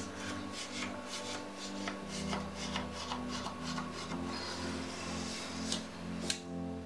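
A knife blade scraping and tapping through set barfi against a round steel plate, a run of short scrapes as the sweet is scored into pieces.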